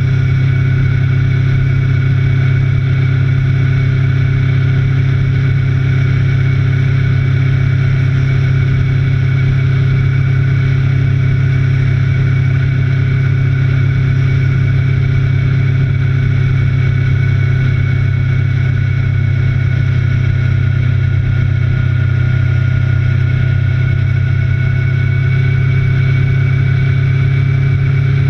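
Motorcycle engine heard from an onboard camera while riding on track: a loud, steady drone with little change in revs.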